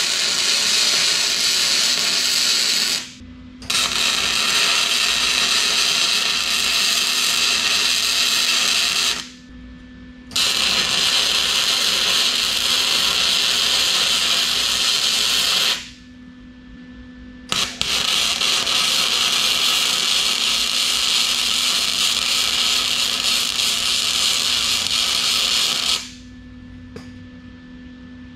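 Electric arc welding on steel rake tines: four runs of steady crackling hiss, each a few seconds long, broken by pauses of about a second, with a steady low hum underneath. The welding stops a couple of seconds before the end.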